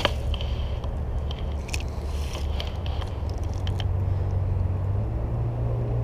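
A cast with a sharp snap at the start, then a spinning reel cranking the lure back in: a low steady rumble with small scattered clicks. A low steady hum joins in about halfway through.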